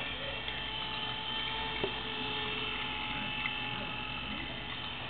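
Steady electric hum of a small motor, with several fixed whining tones and one faint click about two seconds in.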